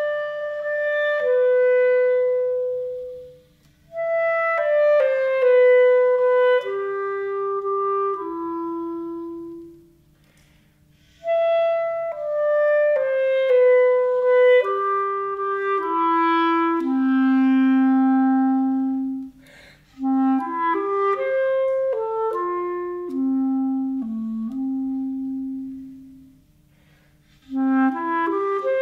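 Solo clarinet playing a slow melody in phrases that mostly fall in steps from high notes to low ones, with short breaks between the phrases.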